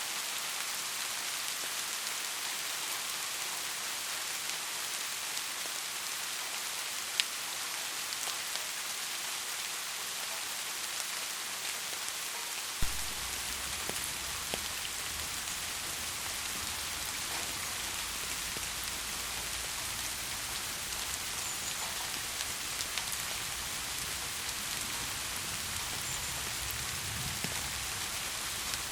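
Steady rain falling with a few sharper, louder drop hits. About halfway through, a steady low rumble comes in beneath the rain.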